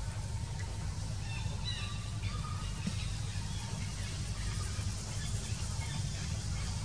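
Outdoor ambience: a steady low rumble with short bird chirps and twitters scattered over it, busiest in the first half.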